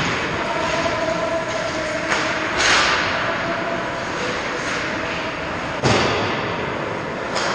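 Ice hockey rink sound during play: a steady rink rumble with skates scraping on the ice and several sharp knocks, the loudest about six seconds in.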